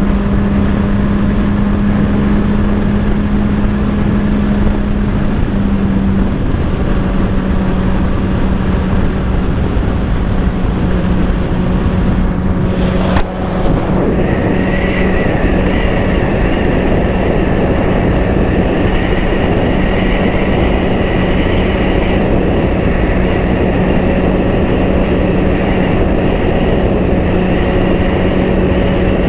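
Sport motorcycle engine running at a steady cruising speed under a loud rush of riding noise. There is a short dip about halfway through, after which a higher whine joins the engine note.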